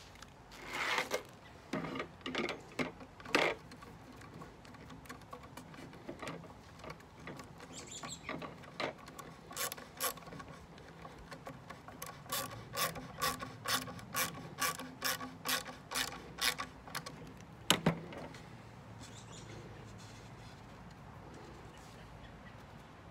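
Ratcheting hand screwdriver clicking as screws are driven into a wooden crate: short runs of clicks, then a steady run of about two clicks a second through the middle, and one sharp knock, the loudest sound, toward the end.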